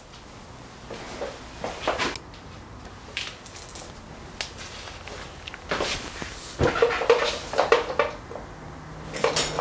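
Handling noise: scattered light knocks, clicks and rustling, with a denser run of clatter from about six to eight seconds in.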